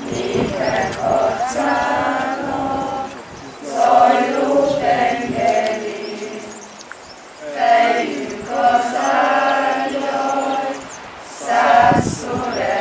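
A group of mixed voices singing together unaccompanied, in phrases a few seconds long with short breaks between them.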